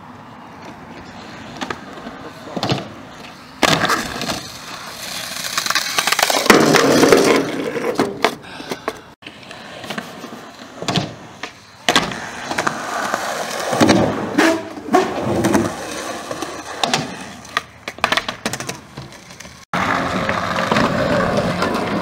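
Skateboard wheels rolling on concrete, with sharp clacks and slaps of the board hitting the ground. The sound breaks off abruptly a few times where one clip is cut to the next.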